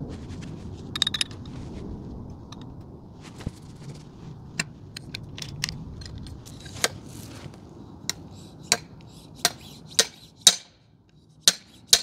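Metal-on-metal clinks and knocks from handling motorcycle fork parts and tools: a dozen or so sharp strikes with a short ring, coming every half second to a second in the second half. A low steady hum runs underneath and drops away about two-thirds of the way through.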